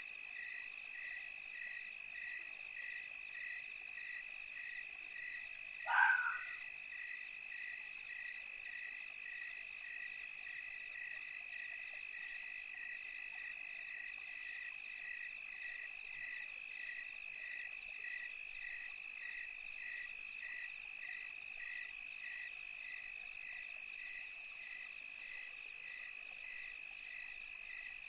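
Night-time animal chorus: a steady high trill with a chirp pulsing about twice a second throughout, and one short, louder call about six seconds in.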